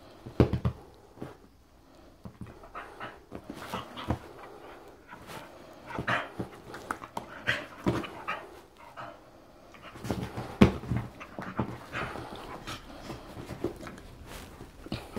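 Staffordshire bull terrier panting and making short playful noises in irregular bursts, the loudest about ten and a half seconds in.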